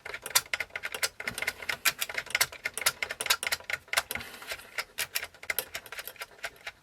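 Rapid, irregular clicking of a cassette deck's plastic mechanical tape counter and reel mechanism as the reel spindle is turned by hand back and forth. The counter is counting again after being freed of a stuck button.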